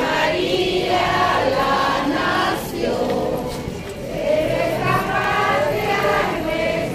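A crowd of procession marchers, mostly women, singing a religious hymn together in unison.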